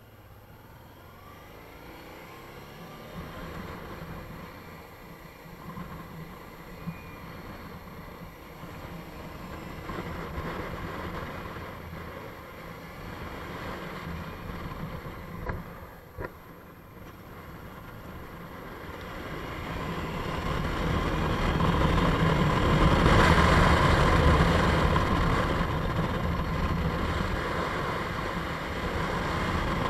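Motorcycle running along a paved road, its engine mixed with wind and road noise on the camera's microphone. Quieter at first with a couple of sharp knocks about halfway, then swelling much louder in the last third as the bike picks up speed.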